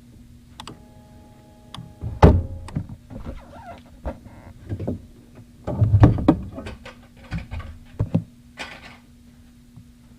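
Irregular knocks, thumps and rustling handling noises, the loudest about two seconds in and again around six seconds, over a faint steady hum. A short electronic-sounding tone is heard near the start.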